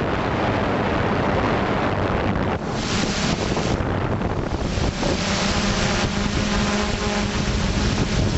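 Wind buffeting the microphone of the camera on a flying FPV drone, with the drone's motors and propellers humming underneath. From about five seconds in, a steady pitched hum comes through the wind more plainly.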